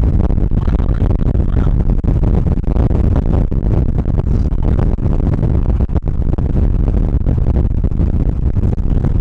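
Strong storm wind buffeting the microphone: a loud, continuous low rumble with crackling gusts, cut off abruptly near the end.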